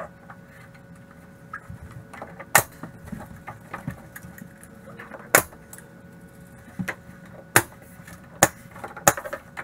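Pneumatic nail gun firing, with about five sharp shots at uneven intervals from about two and a half seconds in, as a cabinet skin panel is nailed to the cabinets. Softer knocks of the panel being handled fall between the shots.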